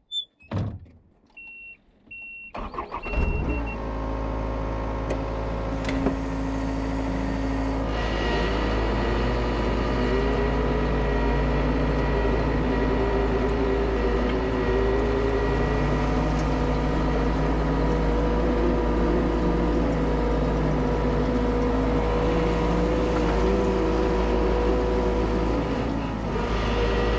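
A few short electronic beeps, then a skid steer's diesel engine starts about three seconds in and runs steadily at working speed, with a wavering whine riding over the engine hum.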